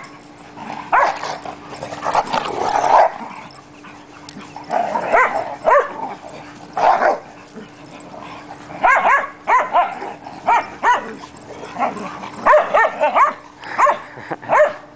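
Dogs barking and yipping during rough play: short, high barks and yips, several in quick succession at a time, repeated over and over.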